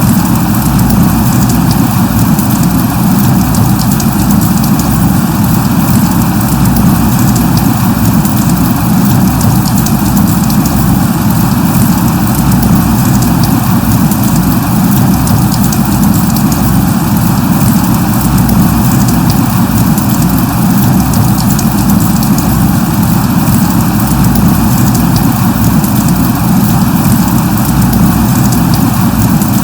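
Steady light rain: an even, constant hiss with many fine drop patters.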